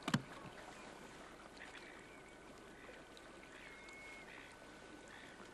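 Sea washing against a rocky shore, a steady wash, with one sharp knock just after the start.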